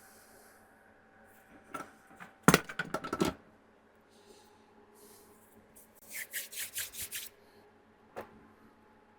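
Sharp clicks and clatter of small hand tools on a workbench during board repair work. The loudest is a quick cluster of clicks about two and a half seconds in. About six seconds in comes a fast run of around eight lighter, higher-pitched clicks, and a single tap follows near the end.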